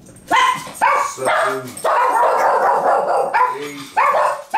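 Pet dog barking repeatedly, a quick run of barks with one longer drawn-out cry in the middle.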